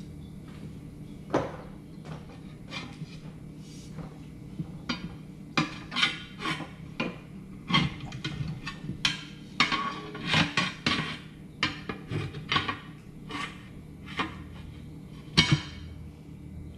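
Metal hand tools clanking and knocking, a string of irregular sharp knocks that is busiest in the middle, with the loudest single knock near the end, over a steady low hum.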